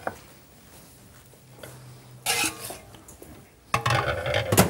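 Metal spatula and spoon scraping and clinking against a china plate and a frying pan as food is dished up, in two short clattering bursts: one about two seconds in and one near the end.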